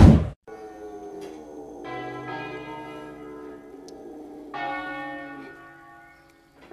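A short, loud burst of noise at the very start, then church bells ringing in long, slowly fading notes, struck afresh about two seconds and four and a half seconds in. A Bernese mountain dog howls along to the bells.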